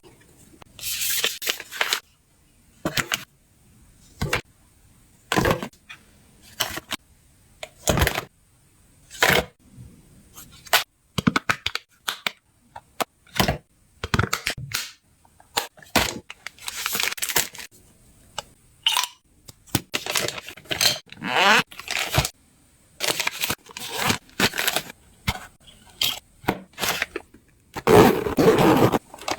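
Hands packing items into luggage: a string of short rustles, crinkles and clicks from things being handled and set in place, with brief pauses between them.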